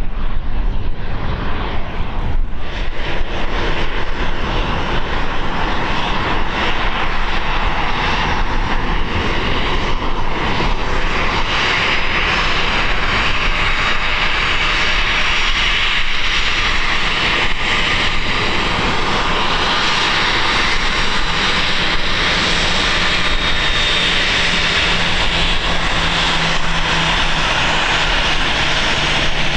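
Jet airliner's engines running, a loud rushing whine that grows stronger about a third of the way in and holds, with wind buffeting the microphone underneath.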